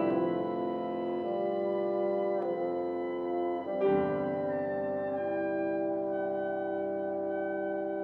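Chamber ensemble of piano, woodwinds, horn and strings playing sustained chords that change every second or so, with a fresh louder chord about four seconds in, then holding notes.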